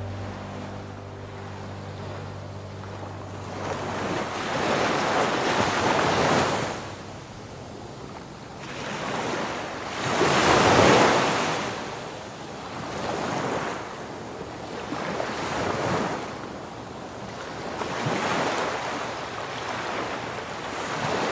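Small waves breaking and washing up a sandy beach, the surf swelling and fading every few seconds, loudest about eleven seconds in.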